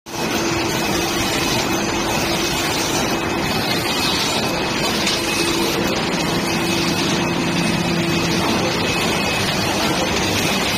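Automatic screen printing and cold foil stamping production line running: a steady, dense mechanical noise with a low steady hum.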